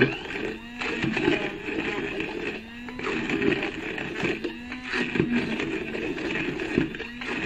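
ESGE Zauberstab immersion blender running in a glass jar, blending onion, cashews, garlic, yogurt and spices into a paste; the sound swells and eases about once a second as the blade is worked through the mixture.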